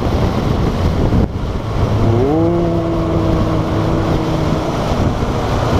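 Riding noise on a Kawasaki Versys 650 as it enters a road tunnel: steady wind rush over the parallel-twin engine running at cruising speed. About two seconds in, a tone glides up and then holds steady for a couple of seconds.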